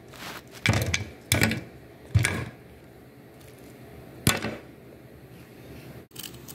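Four short knocks, each fading quickly: three in the first couple of seconds and one more a little past the middle.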